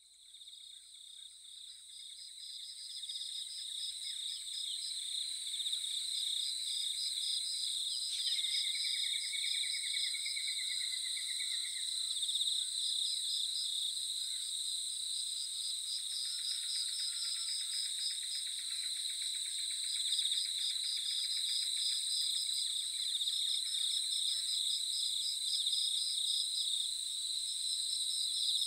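Insect chorus of steady, high-pitched trilling and pulsing, fading in over the first few seconds. A bird calls briefly about eight seconds in. Faint held music tones sit underneath, as the track's nature-sound opening.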